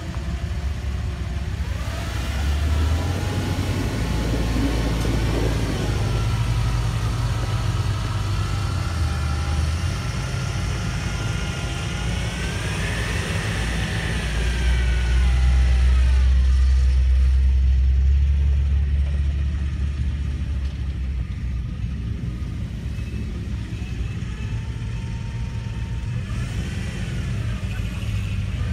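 An old Ford pickup's engine revs up and down as the truck churns through a mud hole and climbs out. The revs rise to a peak about 13 to 14 seconds in. A deep rumble is loudest just after, then the engine runs lower with a few lighter revs near the end.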